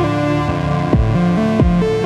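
Ambient modular-synthesizer music: a Moog Grandmother arpeggio steps through a melody over sustained drones. A Noise Engineering BIA kick drum hits twice, about a second in and again near the end, each hit dropping quickly in pitch.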